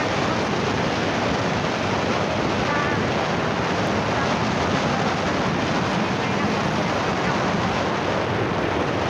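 Steady wind rush buffeting a phone microphone on a moving motorcycle, an even roar that masks the engine and other sounds.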